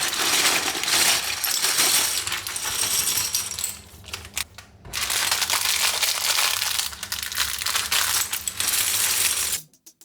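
Loose plastic LEGO pieces clattering together in a dense, continuous rattle, in two long stretches with a brief break about four seconds in.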